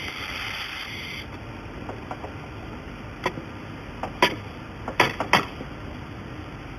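A steady hiss from a welding machine stops about a second in; five sharp knocks follow later.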